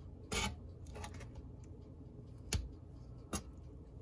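Metal spatula clicking and scraping against a griddle while flipping a sauce-covered turkey patty: about four short knocks, the sharpest about two and a half seconds in.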